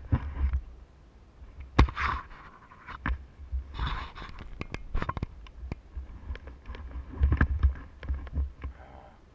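Muffled wind buffeting and bumping on a camera mounted on a 450cc dirt bike riding through sand. The low rumble comes and goes, with irregular thumps and sharp clicks, heaviest about two seconds in and again near the end.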